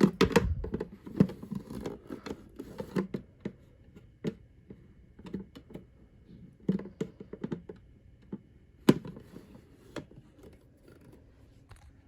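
Hands handling a small plastic mini fridge and a bottle: irregular clicks, light knocks and scraping, with a sharper knock about nine seconds in.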